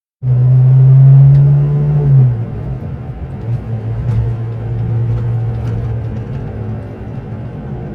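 Car engine running with a strong low hum that starts abruptly. It is loudest for the first two seconds, then its note drops a little and it carries on steadily.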